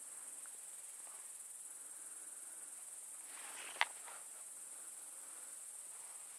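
Crickets singing in a steady, high-pitched drone, with a single sharp click about four seconds in.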